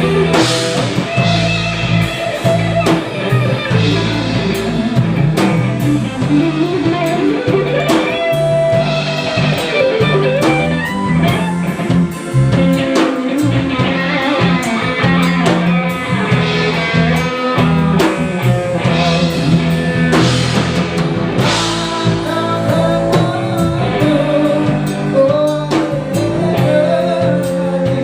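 Band music with no words: guitar melody over bass and drum kit.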